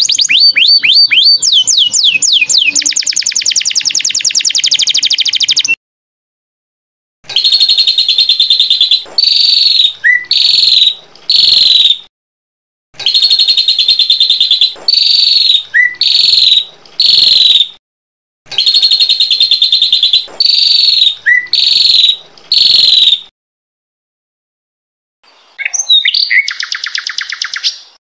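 Small songbird singing loud, clear high phrases. A fast trill opens, then the same chirping phrase of several notes comes three times with short pauses between, and a shorter burst of song follows near the end.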